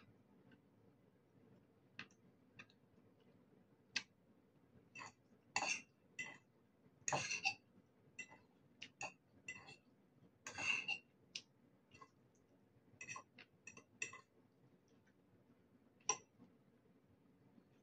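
Eating noodles: scattered slurps and chewing, with a fork clicking and clinking against a ceramic bowl. The longer slurps come about six, seven and eleven seconds in.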